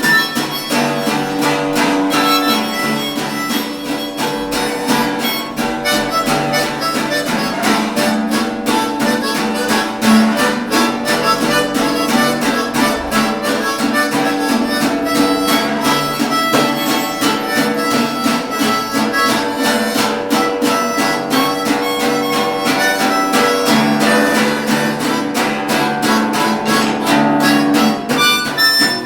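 Acoustic blues band playing: a harmonica leads over strummed acoustic guitar and acoustic bass, with a steady rhythm throughout.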